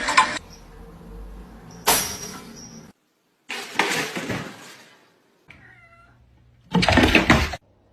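A cat meowing faintly, between several short, loud, noisy bursts that start suddenly and stop dead.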